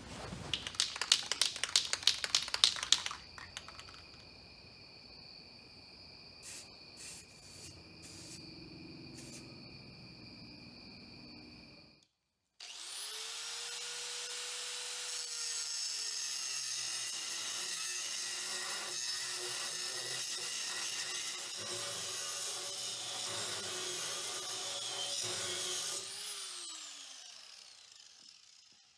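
A few seconds of handling clatter, then a hand-held angle grinder spins up about halfway through, runs steadily for about thirteen seconds, and winds down with a falling whine near the end.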